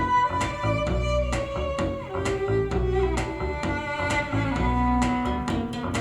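Recorded music with a steady beat, a deep bass line and a sustained melody, played back through Fostex P1000K full-range speakers in quarter-wave resonator cabinets.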